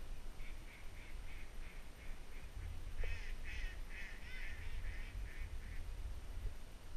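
Ducks calling: a run of short, evenly spaced calls about three a second, then a louder flurry of overlapping calls starting about three seconds in, which stops a second before the end.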